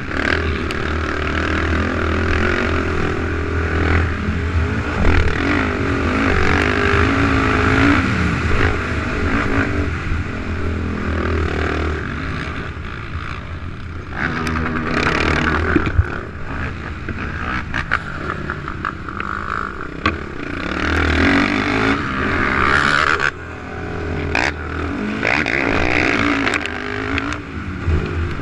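450 production-class racing quad's single-cylinder four-stroke engine revving up and down under hard throttle as it is ridden around a dirt motocross track, heard from the onboard camera, with a few sharp knocks along the way.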